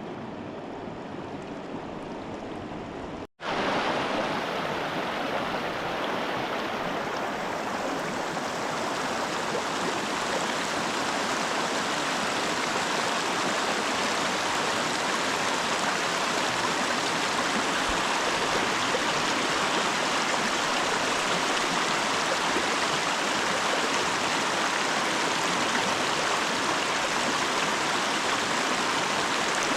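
Steady rushing of river water. About three seconds in, the sound cuts out for an instant and comes back louder and brighter.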